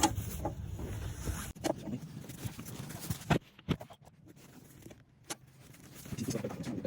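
Irregular metallic clicks and knocks from a car jack being cranked by hand to raise the car for a tire change. A low rumble under them drops out suddenly about a second and a half in.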